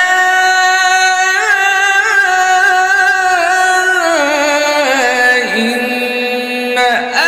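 A male qari reciting the Quran in the melodic tajwid style, drawing out one long ornamented phrase whose pitch steps slowly down. He takes a brief breath near the end.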